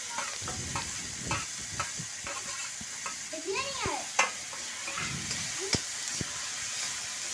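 A steel spoon scrapes and clinks against a steel plate and the wok as mashed brinjal is pushed into the pan, with a short squeaky scrape about three and a half seconds in. Under it, onion, tomato and green chilli sizzle steadily in mustard oil.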